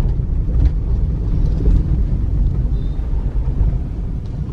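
Maruti Suzuki Baleno driving slowly, heard from inside the cabin as a steady low rumble of engine and road noise.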